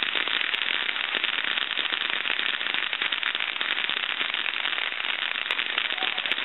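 Ground fountain firework spraying sparks: a steady hiss thick with fast, dense crackling.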